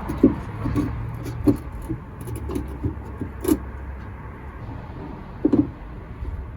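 Scattered light clicks and knocks of bolts being threaded in by hand on a replacement liftgate latch, over a steady low hum.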